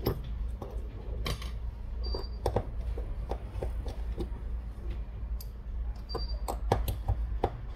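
Small hand tools working on a smartphone's screws and plastic frame: light, irregular clicks and taps, with a few short high tones, over a steady low hum.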